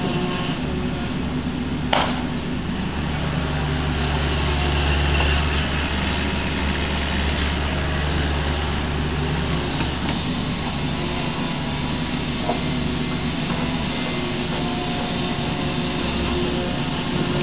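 Kubota KX61-3 mini excavator's diesel engine running steadily under load as it digs and swings, working a little harder about four to six seconds in. A single sharp clank comes about two seconds in.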